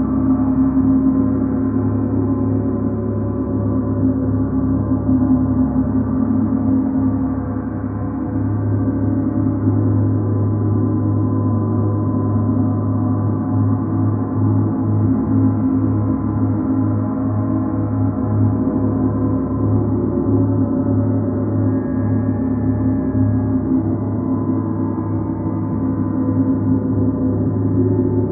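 Large hanging Paiste gongs, one a Mercury planet gong, played continuously with soft felt mallets. The sound is an unbroken, layered wash of overlapping gong tones over a deep hum that throbs steadily.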